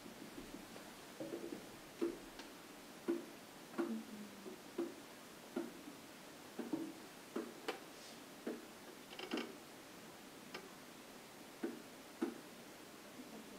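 Marker writing on a whiteboard: a run of irregular short taps and scratches, a stroke every half second or so, with a brief higher squeak about nine seconds in.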